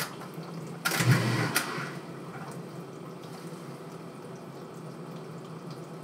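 Dishwasher starting its normal wash cycle: a brief louder rush about a second in, then a steady hum with water running as it fills.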